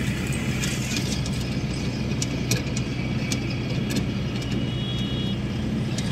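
Motor vehicle engine running steadily on the move, a low hum with a road-noise haze and scattered light rattles and clicks.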